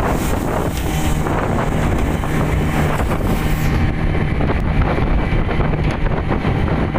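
Speedboat under way at speed: a steady engine drone under heavy wind buffeting on the microphone and water rushing past the hull. The high hiss eases about halfway through.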